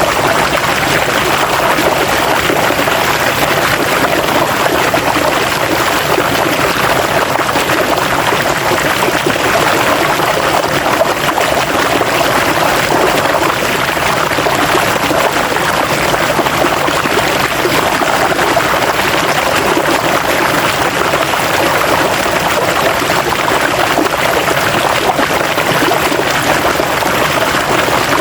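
River water flowing and splashing steadily, an even rushing without pauses or changes.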